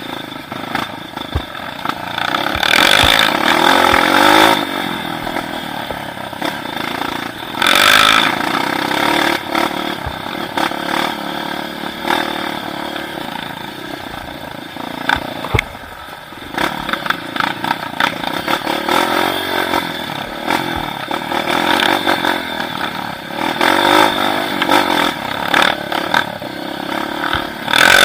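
A vehicle engine running continuously, its pitch rising and falling repeatedly as it revs up and eases off, with scattered clattering.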